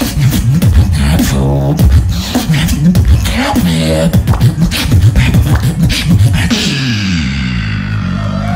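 Male beatboxer performing through a stage microphone: rapid sharp snare and hi-hat clicks over deep bass tones that slide in pitch. About six and a half seconds in the clicks stop and a long falling bass slide is held out.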